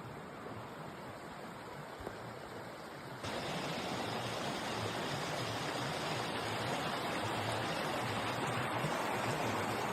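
Steady rush of a fast, cascading creek running over rocks. It steps up louder and brighter about three seconds in.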